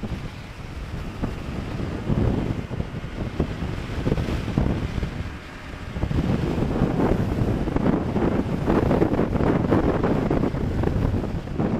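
Wind buffeting the microphone on a moving Yamaha R3 motorcycle, with the bike's parallel-twin engine running underneath. The rush eases briefly about five seconds in, then comes back stronger.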